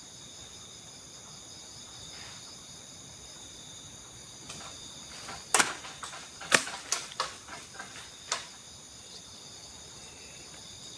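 Steady, high-pitched insect chorus, with a run of sharp cracks and snaps about halfway through, the two loudest about a second apart.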